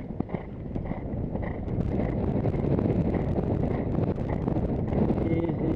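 Wind buffeting a helmet-mounted camera's microphone as a horse moves at speed over grass, with its hoofbeats under the rush of air. The wind noise grows louder about two seconds in.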